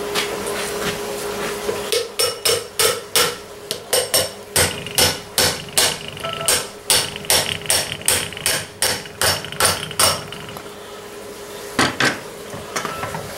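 A rubber hammer tapping a piston down into its bore in a Farmall Touch Control housing: a quick run of light taps, about three a second, then two more near the end. The piston is being eased in gently so as not to damage its O-rings.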